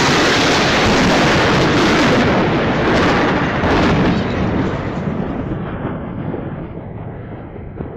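Thunder from a nearby lightning strike: a loud rolling crash that holds for about four seconds, then rumbles away and fades.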